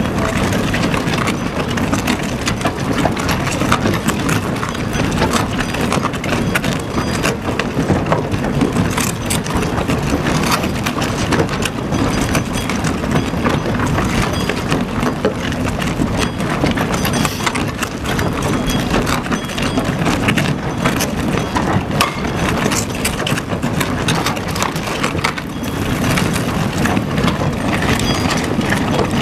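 Tunnel boring machine cutting through the rock behind a shotcrete wall: a steady rumble with many small knocks and clicks throughout. This is the sign that the machine's cutterhead is close to breaking through.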